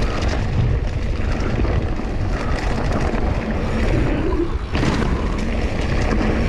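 Mountain bike rolling fast along a dirt trail, with wind buffeting the microphone and the rumble and rattle of tyres and bike over the rough ground. A sharp knock about three-quarters of the way in, as the bike rides over wooden plank features.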